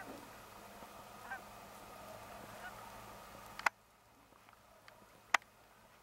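A flock of geese honking in flight, with overlapping calls. About two-thirds of the way in, the calls cut off at a sharp click and leave a quiet outdoor background, and a single sharp click comes shortly after.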